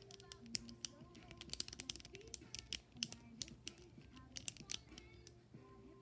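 Plastic link-chain fidget toy clicking and snapping in quick, irregular runs as its links are twisted into new positions, over soft background music.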